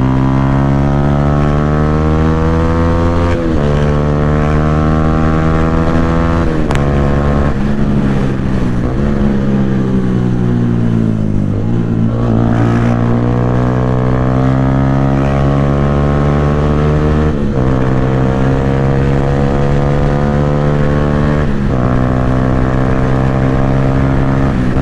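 Yamaha R15 V3's single-cylinder engine through a loud aftermarket Akrapovic exhaust, ridden hard. The revs climb steadily in each gear and drop sharply at upshifts about 3, 7, 17 and 22 seconds in. Around the middle the revs fall away for a few seconds, then climb again.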